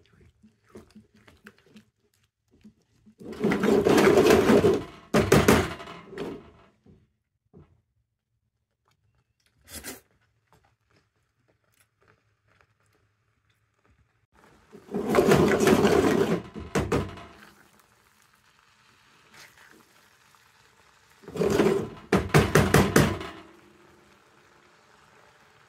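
Spatula stirring thick fuki miso, a paste of butterbur buds, walnuts and miso, in a nonstick frying pan: three loud bouts of scraping, squelching strokes. A faint steady hiss of the paste simmering follows in the last seconds.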